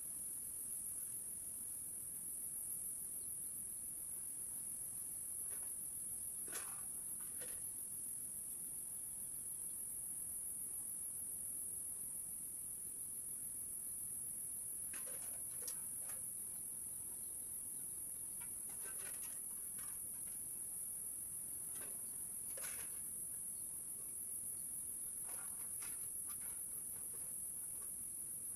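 A continuous high-pitched chorus of field crickets, steady throughout, with a few faint short chirps or clinks heard now and then.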